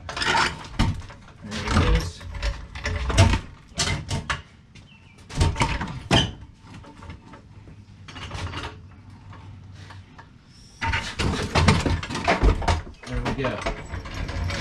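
Metal knocks and clanks, several in the first few seconds and more around the middle, as a Volkswagen Beetle's air-cooled engine, caught on something, is worked free and lowered on a floor jack.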